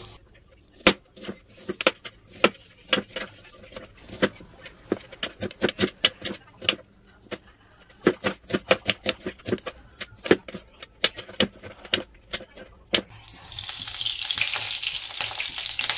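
A knife chopping a red onion directly on a countertop: a long, irregular run of sharp knocks with a short pause midway. Near the end a loud, steady hiss begins as oil is poured into an iron kadai on the stove.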